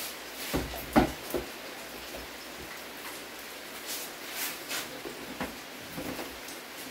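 A few light knocks and clicks of a plastic blender jar being handled and set on its base, the sharpest about a second in, over a faint steady hiss.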